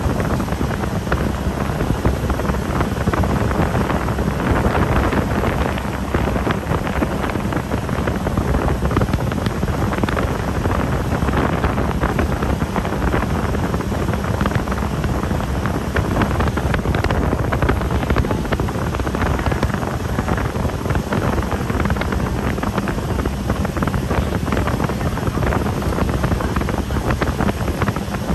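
Heavy wind buffeting the microphone over a steady low motor rumble, which keeps going without a break.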